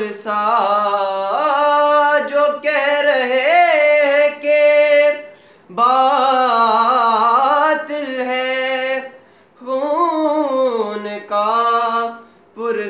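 A young man singing an Urdu devotional manqabat unaccompanied, in long ornamented notes that waver in pitch, with short breaths between phrases.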